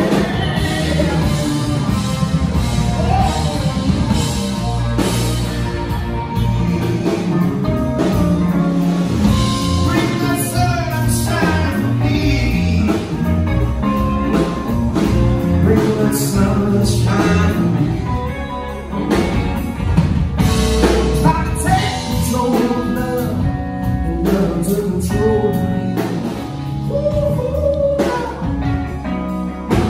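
Live blues band playing: a man singing over electric guitar, electric bass and a drum kit.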